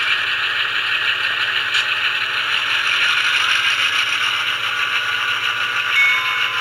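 Sound-equipped HO-scale diesel locomotive running on DCC track, its onboard speaker playing a steady diesel engine sound as it moves along the rails, with a short high tone about six seconds in. The locomotive is running erratically and jerkily, a fault that the owner puts down to either his track soldering or his Digitrax system.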